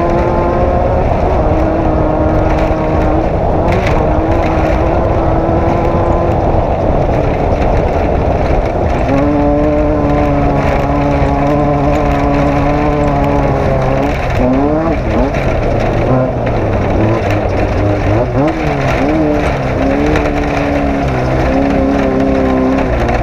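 Off-road race vehicle's engine running hard under a heavy low rumble. Its pitch holds level for long stretches, then swoops down and up twice near the middle as the throttle comes off and back on.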